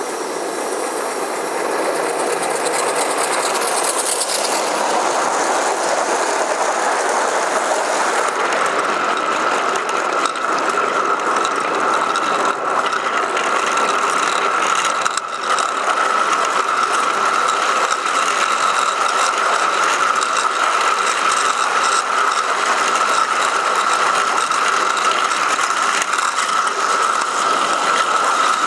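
Gauge 1 live-steam model train running on garden-railway track, heard close up from the train: a rapid, steady mechanical clatter of wheels and running gear. A steam hiss fades over the first few seconds, and a steady high whine comes in about eight seconds in.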